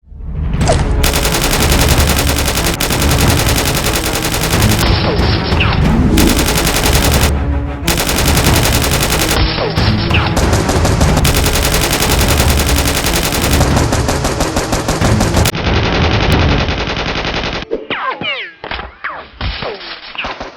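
Rapid automatic gunfire in long, continuous bursts, the kind of machine-gun sound effect laid over a Nerf battle. It breaks off about three-quarters of the way in and returns as shorter, scattered bursts near the end.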